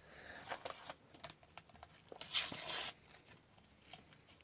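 A sticker pack's wrapper torn open in one rip lasting under a second, about two seconds in, after some soft crinkling from handling the pack.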